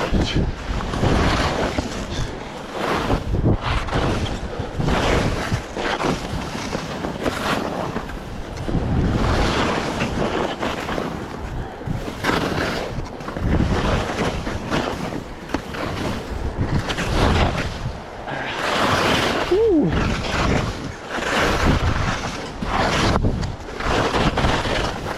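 Wind buffeting the microphone while skiing, with the hiss and scrape of skis on snow swelling and fading turn after turn. About three-quarters of the way through there is a short, falling squeak.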